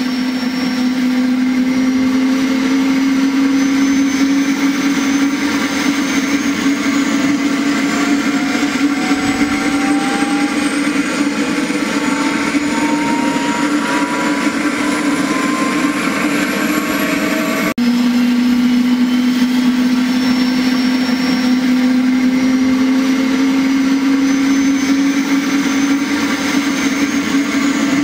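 Small electric motor spinning the propeller of a homemade plastic-bottle toy aeroplane: a steady, loud hum with fainter whines that rise slowly in pitch. It cuts out for an instant about 18 seconds in, then starts over.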